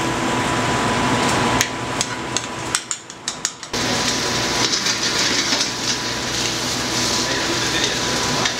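Skate wing sizzling in a hot sauté pan. A run of sharp metal clicks and knocks from utensils against the pan comes about two seconds in, and then the sizzle comes up strongly.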